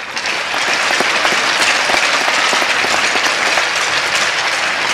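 Audience applauding: many hands clapping in a dense, steady spread of claps.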